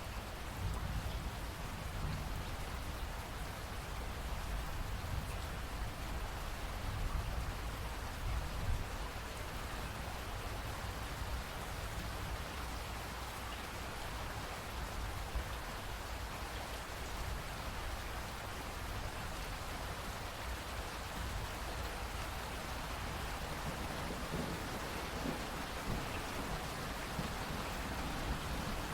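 Steady rainfall in a rainforest: an even hiss of rain with a deep low rumble of thunder underneath, heavier in the first part and swelling again near the end.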